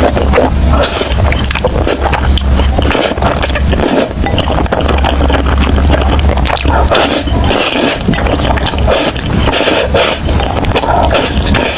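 Close-miked crunchy eating: a dense run of crackling, scraping crunches from biting and chewing, over a steady low hum that drops out briefly a few times.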